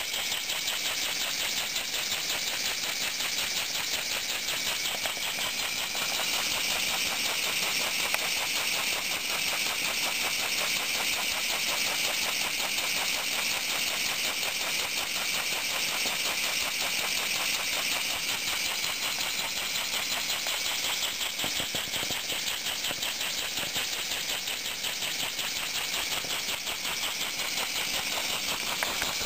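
PM Research No. 3A model horizontal mill engine running on its test run: a fast, even clicking beat over a steady hiss.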